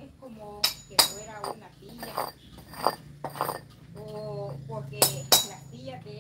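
Indistinct voices with a few sharp metallic clinks, the loudest pair about five seconds in, over a steady low hum.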